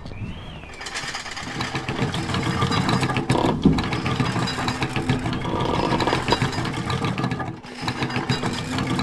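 Vehicle engine running, growing louder about a second in, with a short dip near the end.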